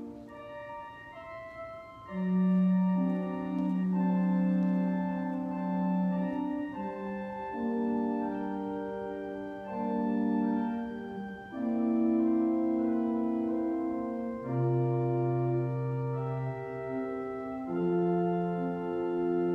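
Organ playing slow, held chords that change every second or two, with bass notes underneath.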